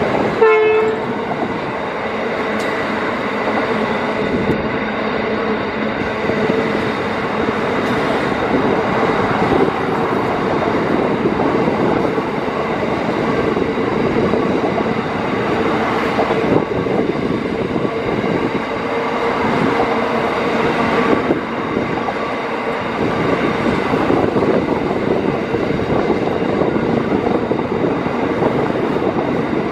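Empty coal train rolling past steadily: a long line of empty coal wagons running over the rails behind two diesel locomotives drawing away. A brief ringing tone stands out about half a second in.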